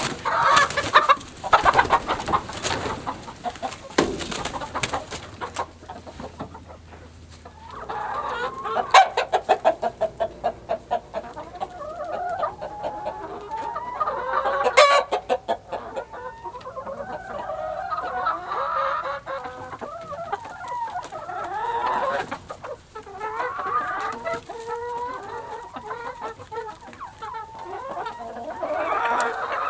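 Chickens in a hen house clucking and squawking in a near-continuous run of short calls. Knocks and clatter fill the first several seconds, and there is one sharp knock about halfway through.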